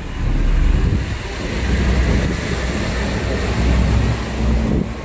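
Loud low rumble of outdoor city noise, swelling about half a second in and easing near the end.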